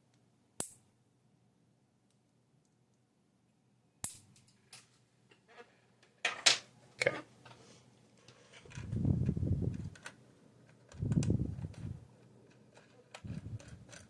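Small clicks and taps of plastic and metal model-train truck parts being handled at close range, with a few low rubbing rumbles from the hands near the end. A single sharp click comes about half a second in, and the handling grows busier from about four seconds on.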